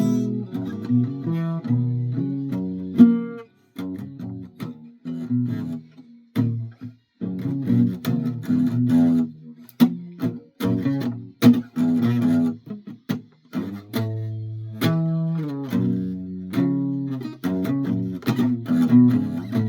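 Guitar played solo: picked low notes and chords in a loose, improvised run, with short breaks about three and a half and six and a half seconds in.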